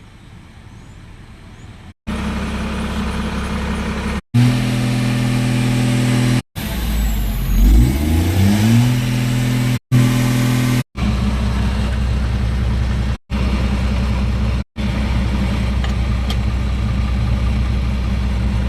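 Eicher truck's diesel engine running at a steady idle, revved up once partway through and settling back, broken by several abrupt dropouts.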